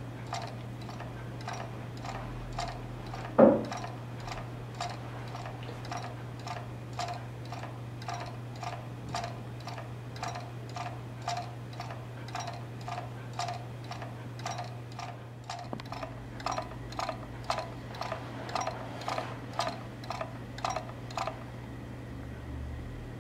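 Homemade wooden magnet-wheel 'perpetual motion' model ticking steadily, about two clicks a second, over a low steady hum. There is one louder knock with a falling tone about three and a half seconds in, and the clicks grow a little louder, then stop near the end.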